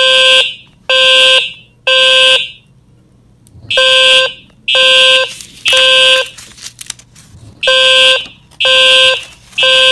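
Fire alarm horn and low-frequency sounder going off together in the temporal-three evacuation pattern: three half-second blasts, a pause, then the pattern repeats, three groups in all. A low-pitched tone sounds under a higher, harsher horn.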